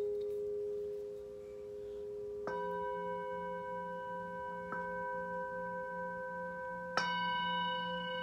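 Metal singing bowl ringing, struck with a mallet about two and a half seconds in, lightly again a couple of seconds later, and sharply about seven seconds in. Each strike adds brighter, higher ringing tones over the lingering hum and a low wavering tone.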